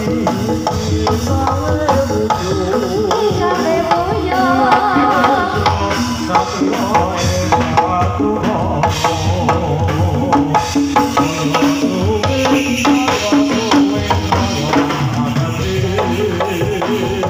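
Live Javanese gamelan music for a jathilan horse-trance dance, with quick, dense hand-drum (kendang) strokes driving over sustained pitched melody lines.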